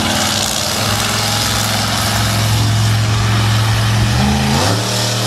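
Monster truck's big engine running hard, a loud steady drone that shifts in pitch, dipping and climbing again about four seconds in.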